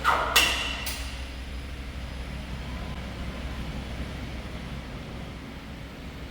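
Three sharp knocks in the first second, the second one the loudest and ringing briefly, over a steady low rumble of machinery.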